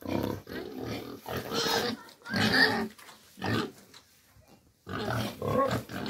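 Pig grunting in a string of short bursts, pausing for about a second past the middle before grunting again.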